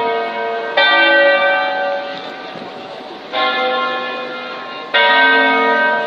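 Church tower bells ringing in a peal: three loud strikes, about a second in, at about three seconds and near five seconds. Each strike hums on with many overlapping tones that die away slowly.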